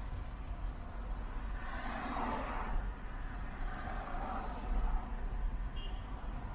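A car driving on city roads: a steady low rumble of engine and tyres with traffic noise that swells twice, about two seconds in and again past the middle.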